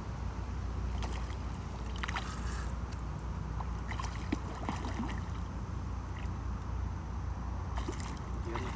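River water running and lapping steadily, with a few small scattered clicks and splashes.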